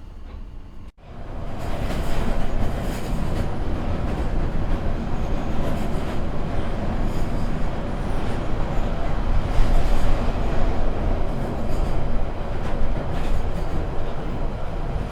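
London Underground train running, a loud steady rumble of wheels on rail with irregular flares of high-pitched wheel and rail noise; it comes in abruptly about a second in.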